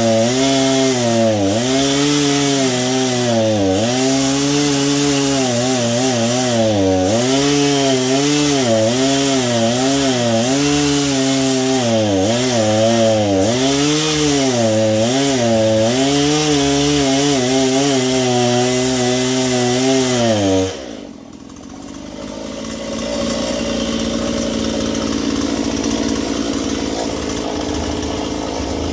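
Two-stroke chainsaw cutting through a log, with its chain in need of sharpening. The engine pitch dips and recovers about once a second as it bogs in the cut. About two-thirds of the way in the throttle is released and the saw drops to a lower, steadier running note.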